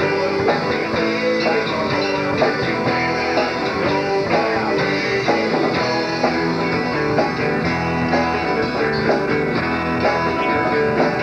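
Southern rock band playing a guitar-led passage, electric guitars over bass and drums.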